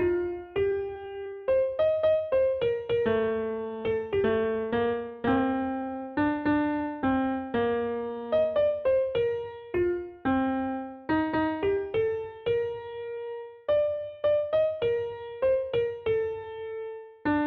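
Background music: a piano-like keyboard melody, single struck notes decaying one after another.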